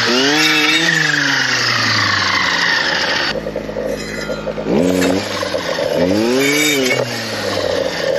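Stihl clearing saw's engine revving up and easing back as its blade cuts through brush. It drops to a lower, quieter speed for about a second and a half in the middle, then revs up again and eases off near the end.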